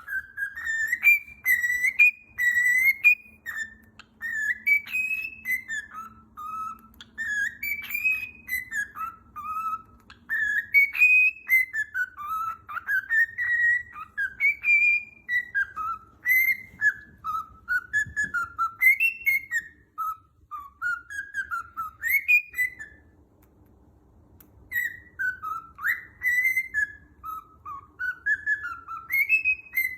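Pet bird whistling a long, wavering melody of gliding notes that rise and fall, with a brief pause a little past the middle, over faint clicks.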